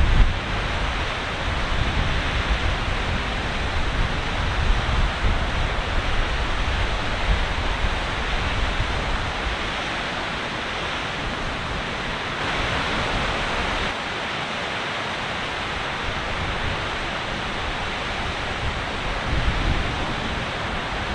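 Steady rushing noise with wind buffeting the microphone, the low gusts strongest at the start and again near the end.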